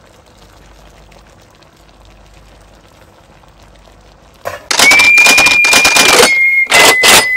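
Faint crackle of a pot of squash and shrimp simmering. About four and a half seconds in, a sudden loud burst of rapid rattling clicks with a steady high whistling tone starts, broken by two short gaps.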